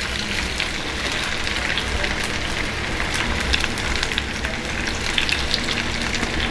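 Masala-coated bone-in chicken pieces shallow-frying in hot oil: a steady sizzle with many small crackling pops as the pieces are laid into the pan.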